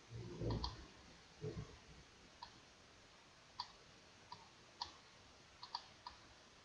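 Computer mouse clicking, about nine short sharp clicks at irregular intervals, a couple of them in quick pairs. There are two dull low thumps within the first two seconds.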